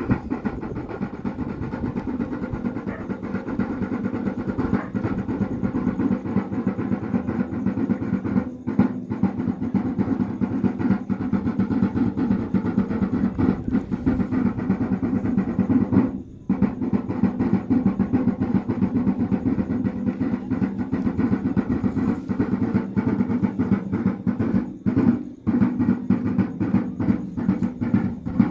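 Wayuu kasha drum beaten in a fast, unbroken roll to accompany the yonna dance, breaking off briefly about sixteen seconds in.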